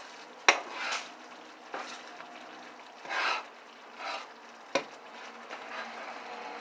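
Stirring in a pot on the stove: a utensil clanks sharply against the pot about half a second in and again near five seconds, with short scraping swishes in between, over a faint steady sizzle.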